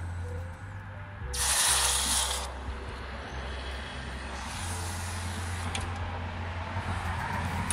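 Hot brass casting quenched in a metal can of water: a loud steam hiss about a second in, then a second, softer hiss and sizzle a few seconds later as it goes back into the water.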